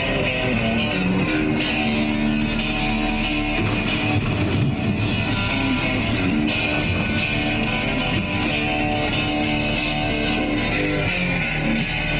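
Rock music with guitar playing on a truck cab's satellite radio.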